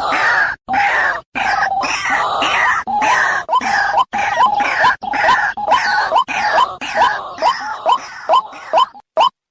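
White-breasted waterhen calling: a harsh, croaking chorus of overlapping calls that turns into a run of short rising notes, about two a second, spaced out with gaps near the end.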